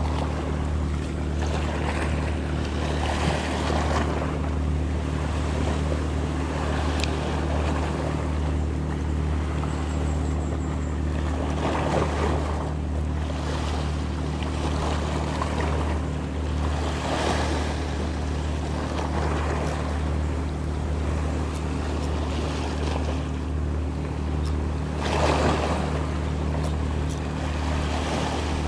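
Small waves washing and splashing over a rocky shoreline, the wash swelling every few seconds, over a steady low hum.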